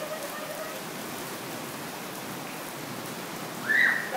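Steady rain falling on a wet brick patio and pool surface. Near the end a child gives one short, high shout, the loudest sound.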